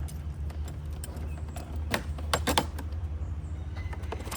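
Sharp plastic clicks and snaps of engine-bay intake vents being pried apart with a screwdriver, the loudest cluster about two seconds in, over a steady low hum.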